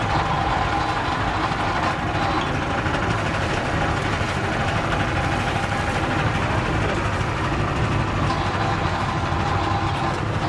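Motorized sugar cane press running steadily, its steel rollers crushing cane stalks as they are fed through, with a faint steady whine over the machine noise.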